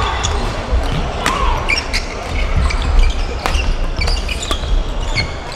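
Badminton rally: irregular sharp smacks of rackets hitting the shuttlecock, mixed with brief high squeaks of court shoes and thuds of footfalls on the hall floor.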